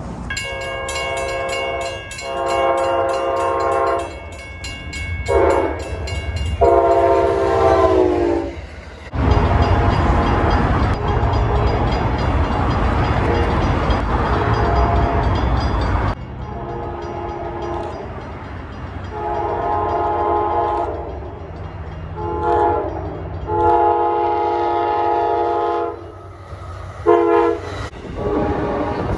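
Locomotive air horn chord sounding long, long, short, long, the pattern of the grade-crossing signal, with the last blast dropping in pitch as the train passes. The rumble and clatter of the passing train follows. A second horn sequence comes near the end: long, short, long, then two quick short blasts.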